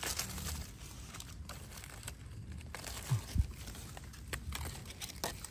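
Faint rustling and light crackling of dry forest leaf litter, with scattered small snaps and a soft low thump a little after three seconds in.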